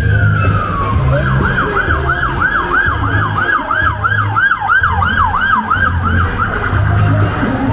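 Emergency vehicle siren: a slow falling wail, then about a second in a fast yelp sweeping up and down about two and a half times a second, switching back to a slow rising wail near the end.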